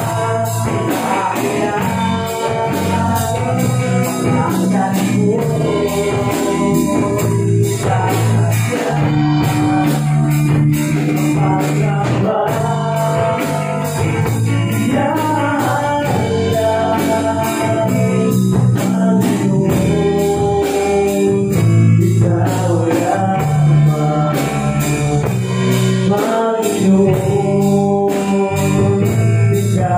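Small live worship band playing a Tagalog praise song: male voices singing over strummed acoustic guitar, electric bass and a drum kit keeping a steady beat.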